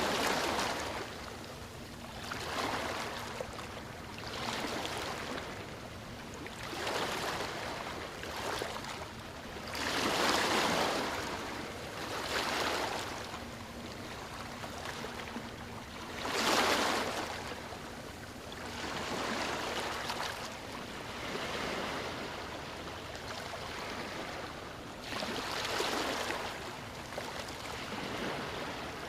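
Small waves breaking and washing up the beach, one surge of hissing surf every two to three seconds, the strongest about ten and sixteen seconds in.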